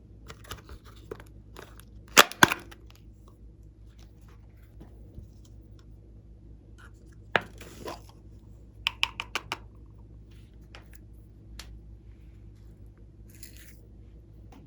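Glossy slime being handled by hand, giving scattered sharp pops and clicks: the two loudest about two seconds in, and a quick run of about five clicks about nine seconds in.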